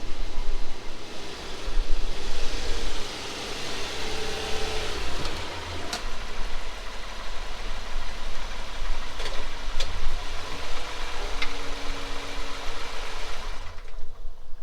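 Car engine running steadily, with a few light clicks partway through.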